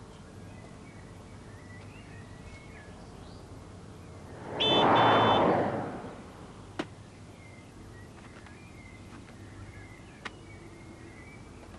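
A car passes on the road, a rising and falling whoosh about four to six seconds in, with a brief high two-part tone at its loudest. Faint birdsong chirps run underneath.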